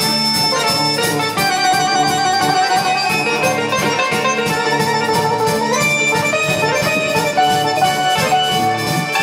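An ensemble of many piano accordions playing a tune together over a steady beat.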